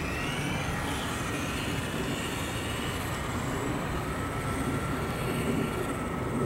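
Electric motor whine of a fast remote-control car driving, a thin tone that shifts slightly in pitch, over a steady low rumble.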